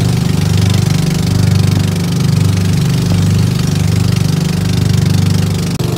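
Outrigger boat (bangka) engine running steadily under way, loud and close, over a steady hiss of wind and water.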